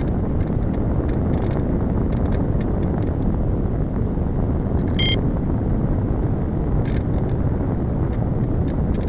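Steady rush of wind over the onboard camera microphone of a Slow Stick RC plane gliding with its motor throttled back, broken by brief crackles and a short high chirp about five seconds in.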